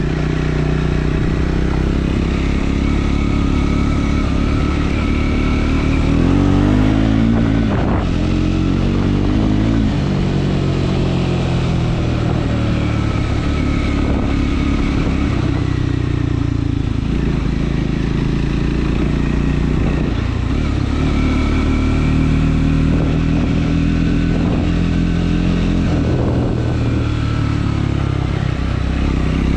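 Triumph Scrambler 400 X's single-cylinder engine running under way, its pitch rising and falling with throttle and gear changes, with the revs sweeping up about six seconds in.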